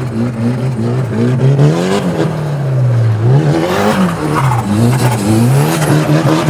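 BMW E36 running a swapped-in Nissan SR20 four-cylinder engine, revved up and down repeatedly as the car slides on loose dirt. The engine pitch climbs and drops several times over a hiss of tyres and gravel.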